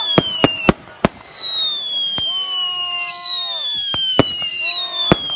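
Fireworks going off: several long whistles, each a steady tone that falls slowly in pitch, overlap one another, with sharp cracks, three in quick succession at the start and two more near the end.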